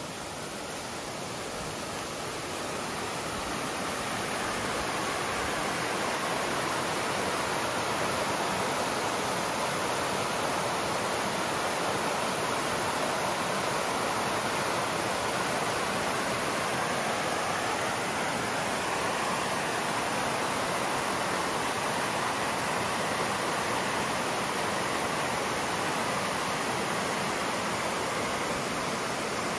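Shallow rocky river rushing over stones in small rapids. The steady rush of water grows louder over the first few seconds, then holds even.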